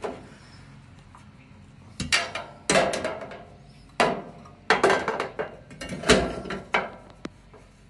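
Metal workbench side panel being handled and pushed into place: a series of irregular sharp metal clanks and knocks, with a quick cluster of them past the middle.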